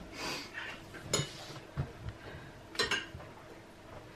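Spoons clinking against soup bowls at the table, a few scattered sharp clinks about a second apart.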